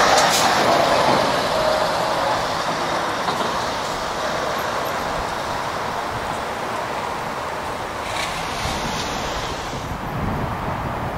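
Scania tractor unit towing a low-loader trailer driving past and away, its engine and tyre noise loudest at first and fading gradually.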